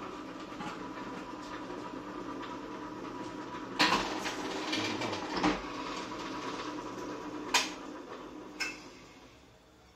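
Can seaming machine's electric motor running with a steady hum while it seams a lid onto a clear plastic can. Three sharp metallic clanks come about four, five and a half and seven and a half seconds in, and the hum dies away near the end as the machine runs down.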